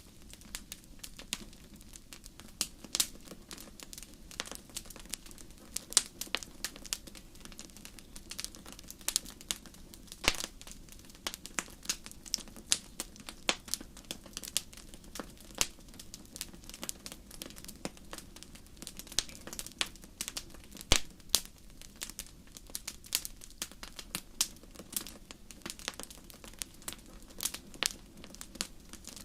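Wood fire crackling in a fireplace: frequent sharp pops and snaps of varying loudness over a faint steady low background.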